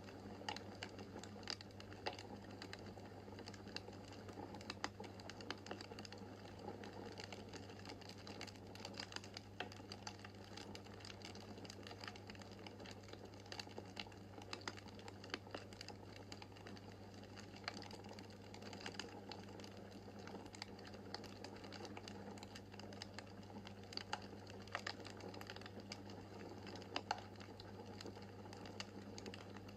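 Wood fire crackling in a fireplace: a dense, irregular run of small snaps and pops over a steady low hum.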